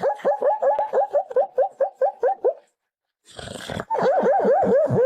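A dog giving rapid runs of short, pitched yelps, about five a second, in two bursts with a brief pause between them.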